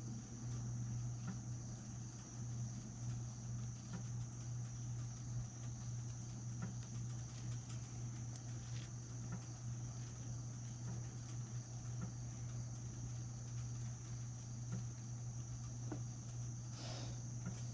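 Faint, scattered clicks and taps of small metal spinning-reel parts being handled, over a steady low hum and a thin high-pitched whine. A brief rustle sounds near the end.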